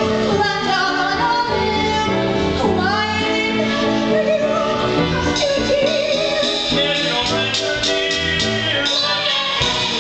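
A song from a stage musical: sung vocals over instrumental accompaniment.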